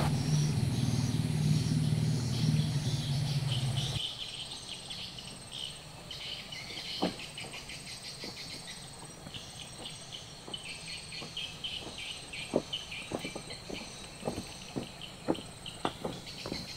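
A low steady hum for the first four seconds, which cuts off suddenly. After it, insects chirp in rapid pulses. From about seven seconds in, footsteps knock on a bamboo-pole bridge, coming more often near the end.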